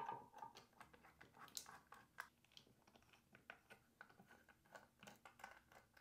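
Faint, irregular small clicks and scrapes of a Torx T9 precision screwdriver turning small screws out of a speaker's circuit board.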